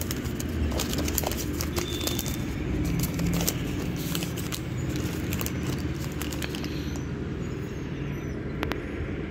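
A paper invoice and plastic wrapping rustling and crinkling as they are unfolded and handled, in short crackly clicks that thin out after the first few seconds, over a steady low background rumble.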